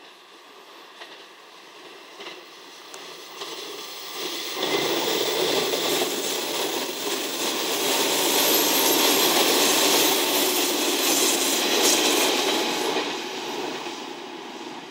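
Five-car JNR KiHa 40-series diesel multiple unit passing: its diesel engines and wheels on the rails grow louder from about four seconds in, stay loud through the middle, and fade near the end. The KiHa 40 car is running with its power-stop lamp lit and its engine out of use, which the uploader takes for a fault.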